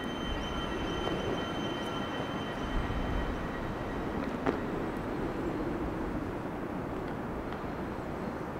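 A steady low rumble with thin, high ringing tones held over it, and a single sharp click about four and a half seconds in.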